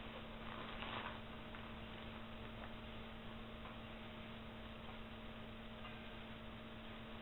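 Faint steady hum over a constant hiss, with a couple of faint ticks about a second in.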